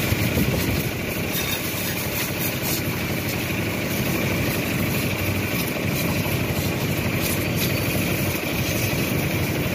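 High-pressure washer running steadily: the hum of its pump mixed with the hiss of the water jet hitting a mud-caked tractor's engine, frame and tyre.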